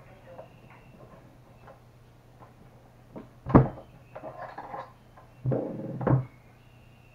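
A computer monitor being handled and adjusted on its stand: a sharp knock about three and a half seconds in, then rubbing and a longer scraping slide near the end as the monitor is shifted into place.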